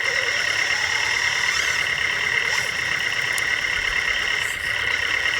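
1/14-scale RC construction model running, with a steady high-pitched whine from its electric motor and drive.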